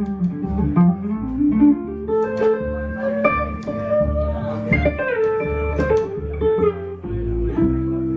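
Instrumental blues passage on guitar and upright bass. The guitar picks a melody over pulsing bass notes, and both settle on a held chord near the end.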